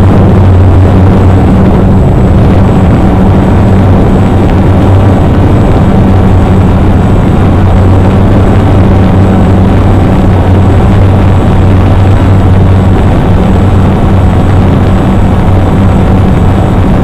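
Electric motors and propellers of a hovering multirotor drone running steadily, very loud from the camera on board: a steady low hum with a rushing noise over it.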